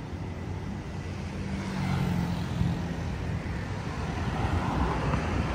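Street traffic: the steady rumble of road vehicles, with one engine's hum swelling up about two seconds in as it passes close.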